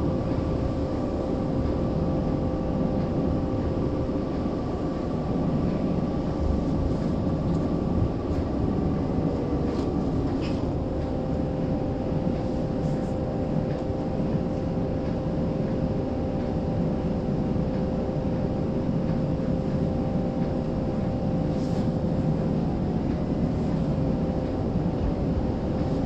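Toronto streetcar running along its route, heard from on board: a steady rumble of wheels and running gear with a few steady hums, one of which stops about ten seconds in.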